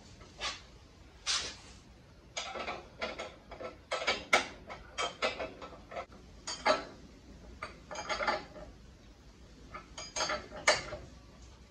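Steel suspension hardware and hand tools clinking and rattling in irregular sharp knocks, some in quick clusters, as nuts and bolts on a front lower control arm and coil spring are fitted and snugged up by hand.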